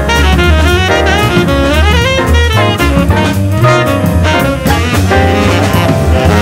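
Background jazz music: brass and saxophone playing a lively melody over drum kit and bass.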